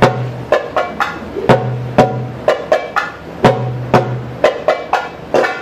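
Darbuka (goblet drum) played solo in a fast rhythm of sharp, crisp strokes, with a deep ringing bass stroke a few times that hums on for up to a second.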